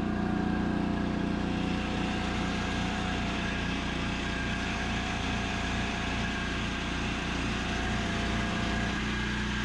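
Small gasoline generator engine running steadily at an even speed.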